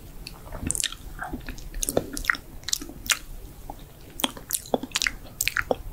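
Close-miked ASMR mouth sounds mimicking eating: wet lip smacks, tongue clicks and chewing, in quick irregular snaps.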